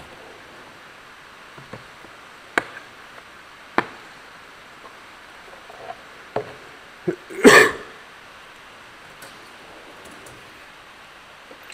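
Metal tool chest drawers being opened and shut and tools handled: a few sharp clicks and knocks, the loudest a short clattering rattle a little past the middle.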